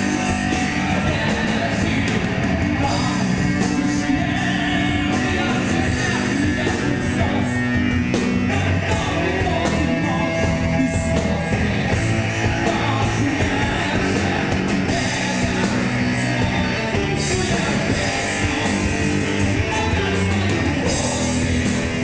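Live speed/power metal band playing: electric guitar, bass and drums at full volume, with a singer's vocals over the top.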